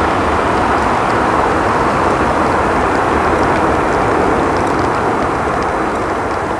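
Airbus A320 jet engines, a loud steady rushing noise as the airliner passes low over the runway and goes around.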